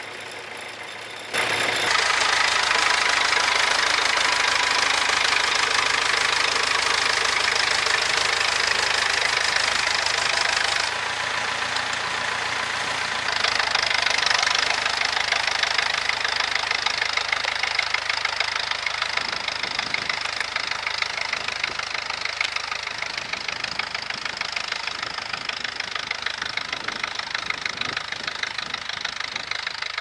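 McCormick B-275 tractor's diesel engine running with a steady clatter as it works with the plough. It comes in loud about a second and a half in, drops a little about 11 seconds in and picks up again a couple of seconds later.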